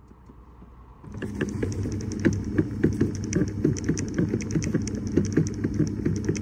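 Rapid clicking and knocking over a steady low rush, starting suddenly about a second in: the fresh-air flap rattling behind the dashboard of a Skoda Fabia 3.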